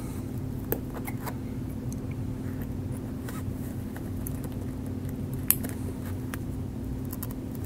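Steady low hum of room tone with a few faint, sharp clicks of a metal needle driver and suture being handled while stitching through a foam sponge, the sharpest click about five and a half seconds in.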